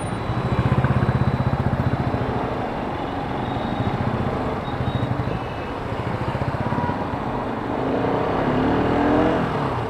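Bajaj Pulsar RS200's single-cylinder engine running at low revs with a steady pulsing beat as the bike creeps through slow traffic.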